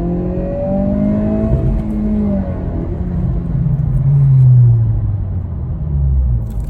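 2022 Honda Civic Si's 1.5-litre turbocharged four-cylinder engine on its stock tune, revs climbing for about a second and a half and then falling steadily as it eases off.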